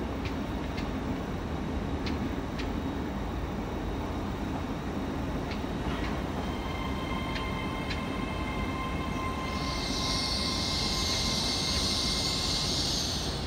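LNER Azuma (Hitachi 800-series) train running slowly through the platform: a steady low rumble with a steady high electric whine and a few sharp clicks from the wheels. About ten seconds in a loud high hiss starts and runs until near the end.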